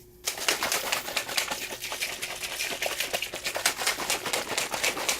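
A shaker cup being shaken hard to mix powdered energy-drink mix: a fast, steady rattle that starts about a quarter second in and keeps going.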